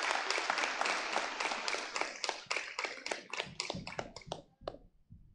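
Congregation applauding. The applause thins to a few scattered claps and stops about four and a half seconds in.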